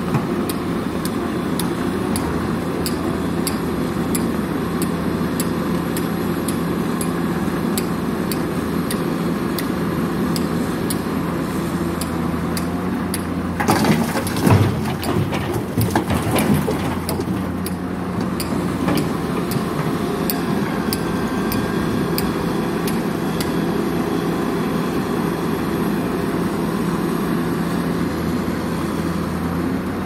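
Diesel engine of a Liebherr hydraulic excavator running steadily as it loads a tipper lorry. About halfway through, a bucketful of murram (earth and stones) pours into the lorry's steel body with a rush of falling soil and knocking rocks lasting a few seconds.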